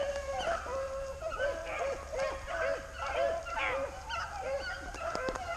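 A pack of rabbit-hunting hounds baying and yelping in many overlapping calls, a sign that the pack is running a rabbit's trail.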